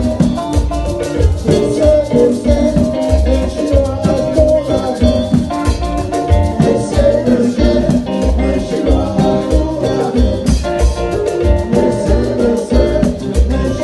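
Live band playing dance music with a steady beat, drum kit and bass, and a man singing into a microphone.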